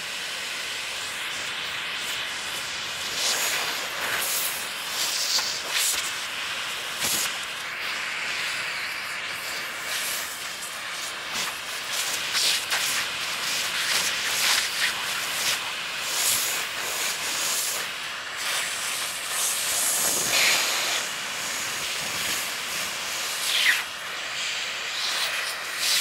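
Vacuum cleaner running: a steady rushing hiss of air, strongest in the upper range, with frequent short, sharper surges all through.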